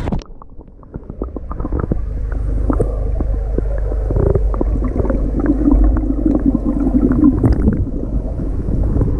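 Underwater sound in a swimming pool: the sound turns muffled as the camera goes under, then a low rumble of moving water with scattered clicks and bubbling as a swimmer glides past blowing bubbles, louder and steadier from about five seconds in.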